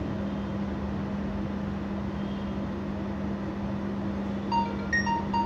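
Steady machine hum with a low drone, like a fan or air conditioner running. Near the end, three short electronic beeps.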